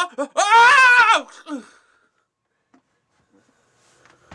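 A person's voice letting out one loud, drawn-out, high vocal cry about a second long, its pitch wavering and falling at the end, followed by a few short fainter vocal sounds.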